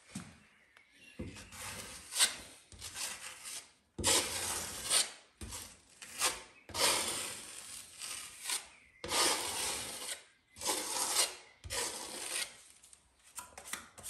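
Putty knife scraping and spreading white filler over a plaster wall in a series of rasping strokes, some short and some nearly two seconds long, pressing filler into small holes to give a smooth surface for painting.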